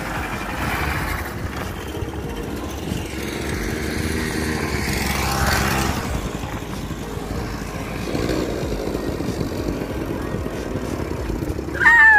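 Small youth quad bike (ATV) engine running as it rides over sand, its pitch rising partway through as it speeds up. Near the end comes a loud, high cry that falls in pitch.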